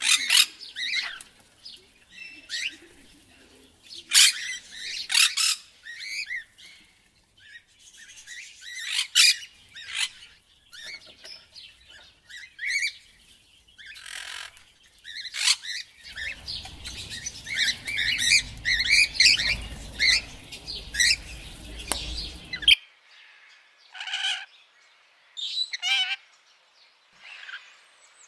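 A parrot calling in irregular bursts of short, sharp squawks and chirps with brief pauses between. Past the middle, a low rumble sits under the calls for several seconds and then cuts off suddenly.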